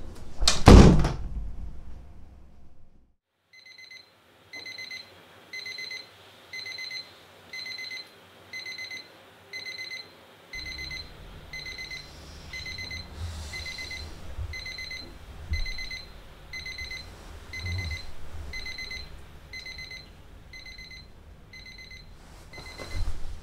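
A loud rush of noise in the first second. Then, from about three and a half seconds in, an alarm clock beeps with short high electronic beeps about once a second, over and over. From about ten seconds in, bedding rustles with a few soft thumps as the sleeper turns over under the duvet.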